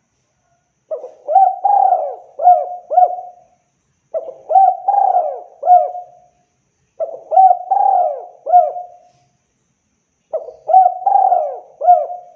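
Spotted dove cooing: four phrases of four or five coos each, the phrases coming about every three seconds.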